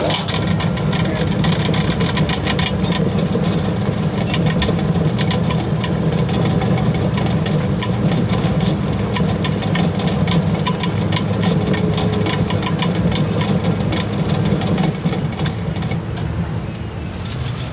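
Electric centrifugal oil spinner running: its perforated stainless-steel drum spins a load of freshly fried patongko to throw off the excess frying oil. A steady motor hum runs under a dense, fast clatter of clicks as the dough sticks tumble against the drum.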